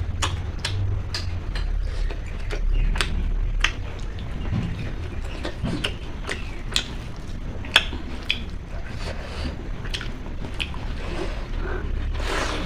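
Close-up eating sounds: a person chewing food with irregular sharp wet clicks and smacks, over a steady low hum.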